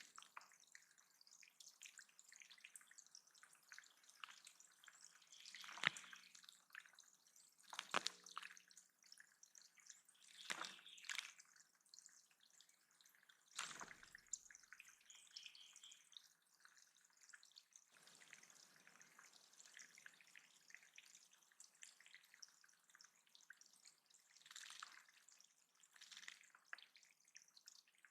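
Water dripping and splashing in a backyard bird pond: faint, scattered drops and splashes a second or two apart.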